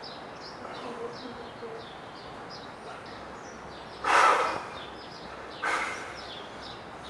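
Small birds chirping repeatedly in short, high notes. Two short, loud rushes of noise break in, about four seconds in and again near six seconds, the first the louder.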